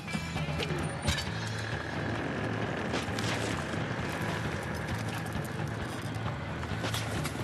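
Boeing 234 Chinook tandem-rotor helicopter hovering, with steady rotor and engine noise. A sharp crack comes about a second in, and lighter knocks come around three seconds in and near the end.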